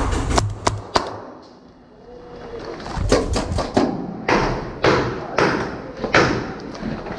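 Footsteps and gear thudding about twice a second as a paintball player moves through an indoor arena, starting about three seconds in. Near the start, a low rumble fades out, with a few sharp cracks.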